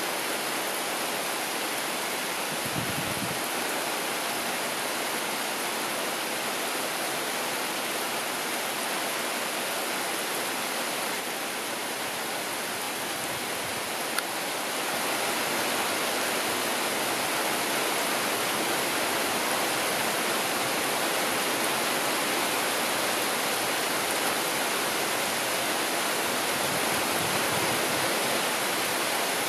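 Heavy summer downpour: a steady, even hiss of rain pouring down, growing a little louder about halfway through.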